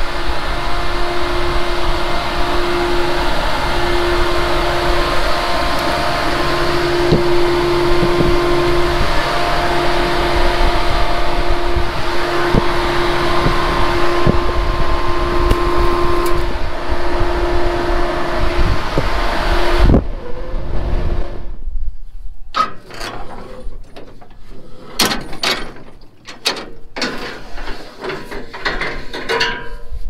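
A loud, steady, fan-like rushing noise with a faint wavering hum. About two-thirds of the way in it cuts off suddenly, and quieter scattered metal clanks and knocks follow.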